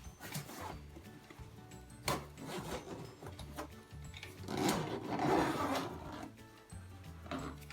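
A zipper on a stroller carrycot's fabric cover pulled in several rasping strokes, the longest about halfway through, with fabric rubbing, over background music.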